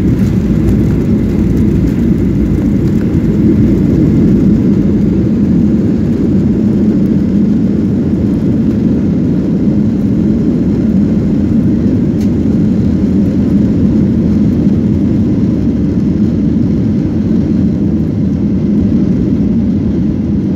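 Jet airliner cabin noise during the landing rollout, with the spoilers up: a loud, steady, deep rumble of engines, airflow and wheels on the runway, easing slightly toward the end.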